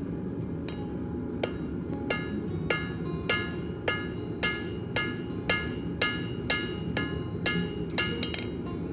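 Hand hammer striking red-hot steel bar on an anvil, a steady run of ringing blows about two a second that grow stronger about a second and a half in.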